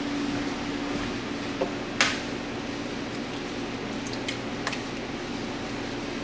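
An egg knocked sharply against the rim of a bowl once, about two seconds in, with a lighter tap just before it and a few faint clicks of shell later, over a steady low hum.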